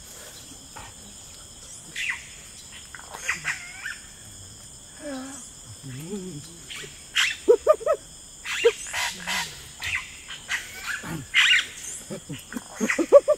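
Human voices making wordless animal-like cries: short shrieks, yelps and grunts in quick bursts, sparse at first and coming thick and fast in the second half.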